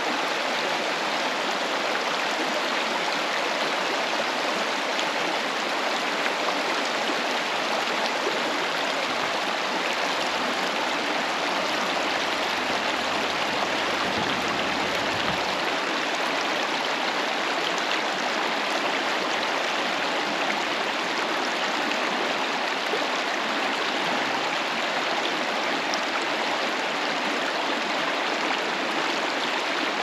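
Waterfall: a steady, unbroken rush of falling and churning water.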